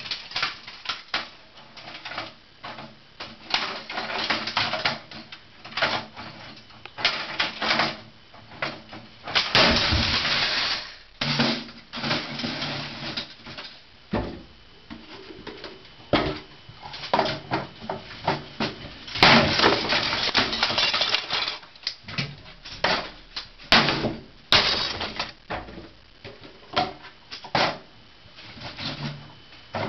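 A hammer repeatedly smashing brittle plastic in quick, irregular strikes, with cracking and crunching of the breaking pieces. There are longer spells of crunching about ten and twenty seconds in.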